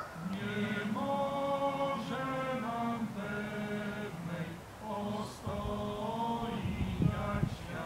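A small congregation of men and women singing a slow hymn together, holding long notes. A low rumbling noise comes in near the end.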